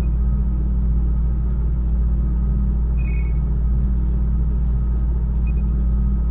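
Deep, steady rumbling drone with short, high electronic beeps and blips scattered over it, a cluster of them about three seconds in: an ominous electronic ambience.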